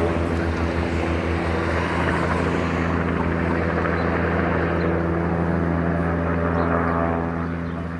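Helicopter flying over, its rotor and engine running steadily, growing a little quieter near the end.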